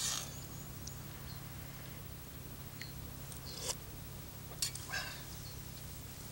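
A man eating very hot soup from a spoon out of a metal camping mug: a few short slurps and spoon sounds, spaced seconds apart, over a low steady hum.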